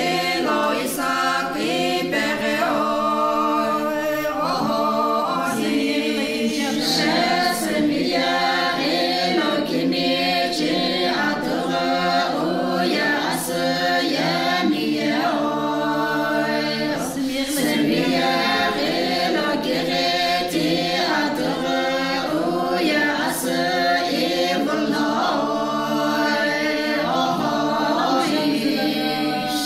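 A group of women singing a song together a cappella, with no instruments, in continuous phrases.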